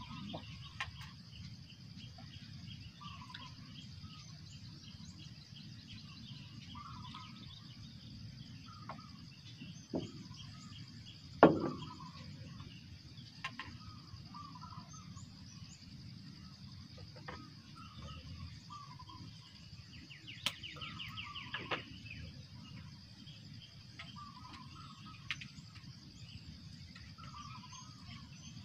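Reservoir-side dawn ambience: a steady high insect drone, short bird calls repeating every couple of seconds, and a low rumble underneath. A single sharp knock comes about eleven seconds in and is the loudest sound; a brief rattling trill follows near twenty seconds.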